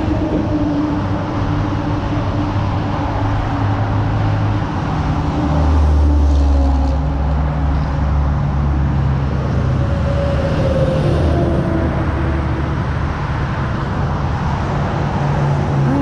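Highway traffic: a steady rush of passing cars and trucks, with a low rumble that swells about six seconds in.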